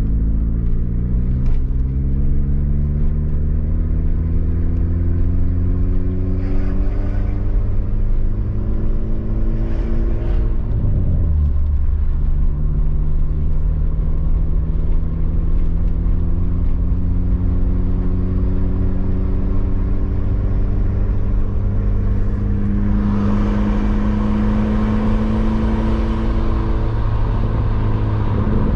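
Audi S4 B8.5's supercharged 3.0-litre V6 pulling through a gear, its pitch rising steadily. It drops sharply at a gear change about eleven seconds in, then climbs slowly again. Road and wind noise grow louder about three-quarters of the way through.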